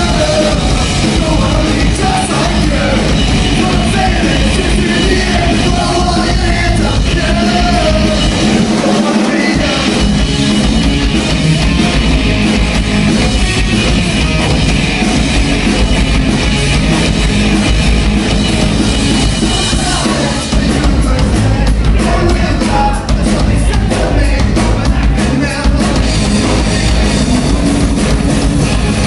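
Live rock band playing loud: electric guitars through amps, a drum kit and a male lead singer. The bass end drops out briefly about nine seconds in.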